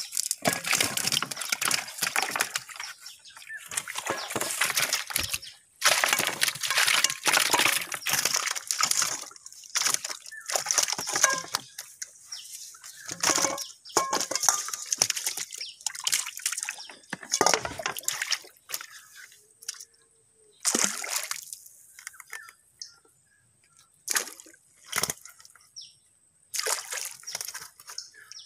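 Water sloshing and splashing in irregular bursts as a person standing in the water beside a wooden boat pulls and handles a wet fishing net. The bursts thin out into shorter splashes with quiet gaps in the later part.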